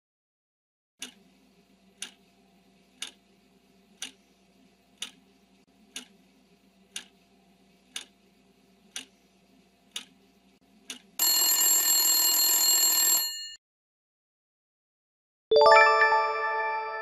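Quiz countdown timer sound effect: a clock ticks once a second about ten times over a faint hum, then an alarm bell rings for about two seconds to mark time up. After a short pause a chime dings and rings out as the answer is revealed.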